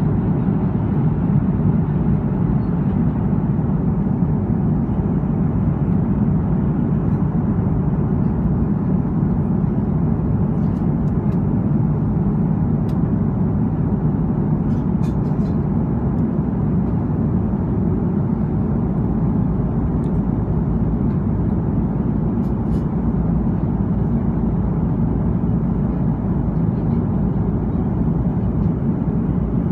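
Airliner cabin noise at cruise altitude: a steady low rumble of the jet engines and the airflow over the fuselage, heard from a window seat over the wing.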